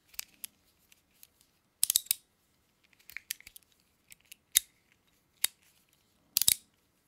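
Metal Shock Bomb fidget toys being twisted and snapped in the hands: scattered sharp metallic clicks and snaps from their ratchets, in small clusters about two, four and a half, five and a half, and six and a half seconds in. The ratchet of the black one is not yet broken in.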